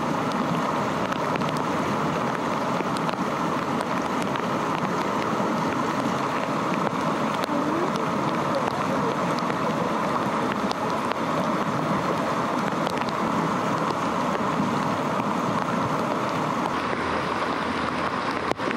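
Creek water rushing steadily, a full, even hiss of flowing water with a few faint scattered ticks.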